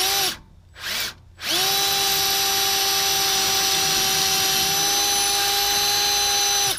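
Cordless drill blipped twice, then run steadily at one speed for about five seconds before stopping, drilling out a broken bolt.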